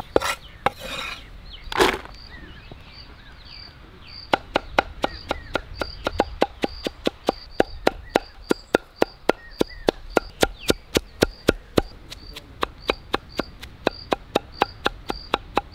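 Cleaver chopping jackfruit bulbs finely on a wooden log chopping block. There are a few separate knocks at first, then from about four seconds in a steady run of sharp knocks, about four a second.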